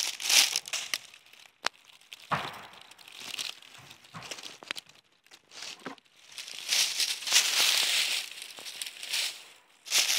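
Footsteps shuffling through a thick layer of dry fallen leaves, an irregular crackling rustle that comes in bursts, quieter for a stretch in the middle and loudest again for a few seconds toward the end.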